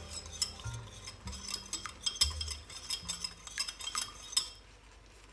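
A utensil clinking and scraping against a glass bowl as thick stir-fry sauce is scraped out of it into the pan: a run of light, irregular clinks that stops about four and a half seconds in.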